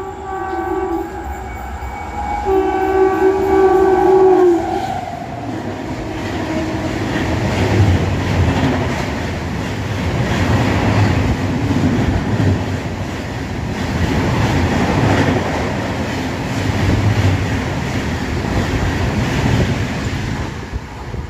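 Locomotive horn sounding, one blast fading out about a second in and a second long blast from about two and a half seconds to nearly five, then an express train running past: a steady loud rush and rumble of wheels on the rails that drops away just at the end.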